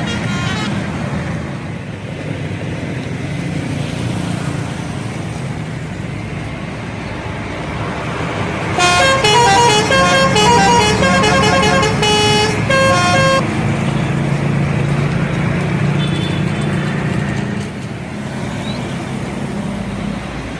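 Bus engine running, with a multi-tone 'telolet' musical air horn playing a quick tune of short stepped notes for about four and a half seconds near the middle.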